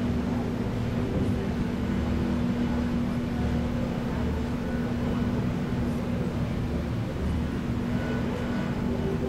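Steady hum and low rumble of a cruise ship under way, heard from on board, with one constant droning tone.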